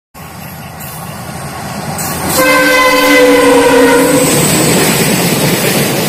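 WDG5 diesel locomotive approaching, its rumble growing steadily louder, then its horn sounding one long steady blast from about two and a half seconds in until a little past four seconds.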